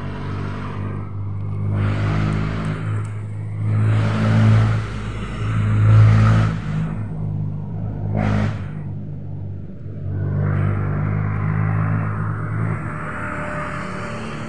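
An engine running with a steady low hum. It swells louder a few times, most of all about six seconds in, and its hum drops away shortly before the end.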